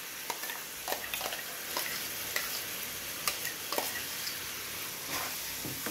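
Steady sizzling hiss from a pan of bitter gourd cooking in tamarind water, with a dozen or so light clinks and scrapes as a steel spoon scoops thick ground masala paste out of a mixer jar into the pan.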